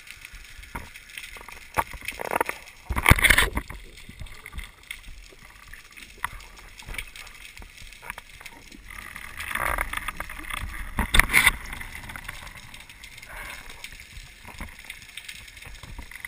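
Underwater sound picked up through a camera housing as a spearfisher moves along a reef: a low water rush with scattered small clicks and knocks, and two louder rushing gurgles of moving water about 3 seconds and 11 seconds in.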